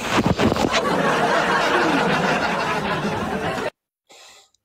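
Several people laughing loudly together, cut off abruptly about three and a half seconds in.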